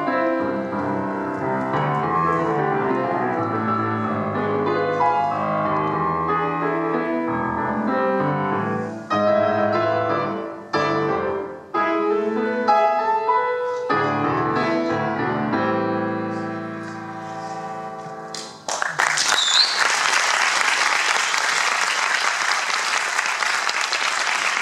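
Grand piano playing the closing bars of an Argentine folk-dance piece. Full chords give way to a few sharp, separated chords, then a final held chord that fades. About nineteen seconds in, the audience breaks into applause.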